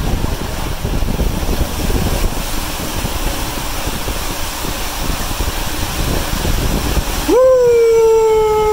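Rushing water and rumbling of a rider sliding fast down an enclosed water slide tube. About seven seconds in the rushing drops away and a long, steady high tone begins, rising slowly.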